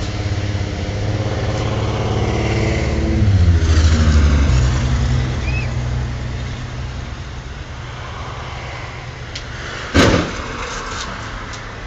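A car engine running close by, growing louder and then dropping in pitch about four seconds in, before settling to a lower, quieter run. A single sharp bang about ten seconds in.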